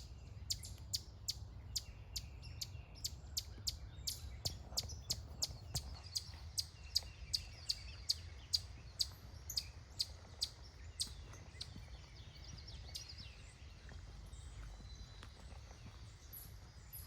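Eastern chipmunk giving its repeated chip call: short, sharp, high-pitched chips, about two to three a second, that die away about three quarters of the way through.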